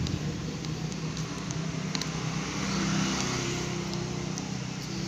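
Steady low rumble like a motor vehicle's engine or road traffic, with a few faint ticks over it.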